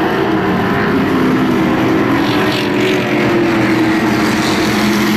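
A pack of Amcar speedway sedans racing on a dirt oval, several engines running hard at once. Their overlapping pitches rise and fall as the cars go through the turn.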